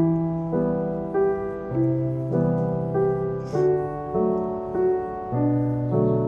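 Gentle solo piano background music, with notes struck at a steady, even pace about every half second.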